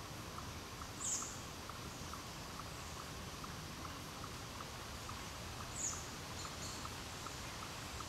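Woodland ambience: a steady soft hiss under a regular faint ticking, about two to three ticks a second. Two short, high, falling chirps stand out, one about a second in and one near six seconds.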